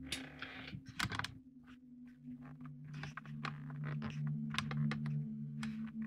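Small plastic buttons clicking irregularly as the channels of a Tiny TV Classics miniature TV are stepped through, over a steady low hum that sets in about a second and a half in.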